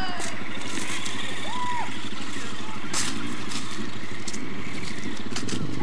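All-terrain vehicle (four-wheeler) engine idling steadily, with a few sharp clicks over it.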